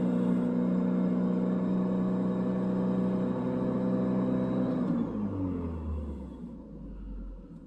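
Chevy S10 pickup engine running at a steady high idle, held up because the computer reads a false cold coolant temperature of 28 degrees from a faulty coolant temperature sensor. About five seconds in it shuts off, its speed falling away over about two seconds until it stops.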